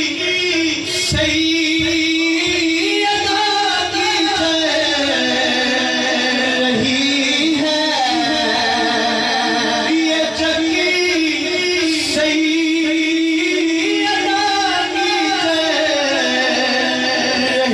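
A man's voice singing a naat into a microphone through a sound system, in long held notes that bend and ornament the melody without a break.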